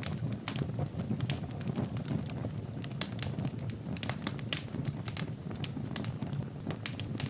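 Wood fire burning in a fireplace, crackling and popping with many sharp, irregular snaps over a steady low rumble.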